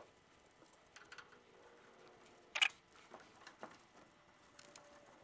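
Scattered small clicks and taps as copper refrigerant tubing is handled and a tubing cutter is clamped onto the line, the sharpest click about two and a half seconds in. A faint thin whine runs through the second half.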